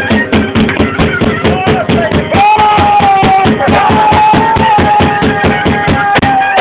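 Albanian lodra, a large double-headed bass drum, beaten in a rapid steady rhythm with accordion and clarinet folk music playing along. A long high note is held from about two and a half seconds in until near the end.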